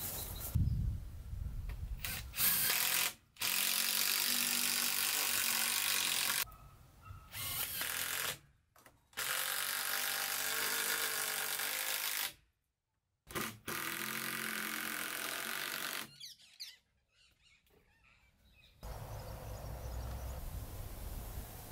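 Power drill running in about five steady bursts of two to three seconds each, each one cut off abruptly.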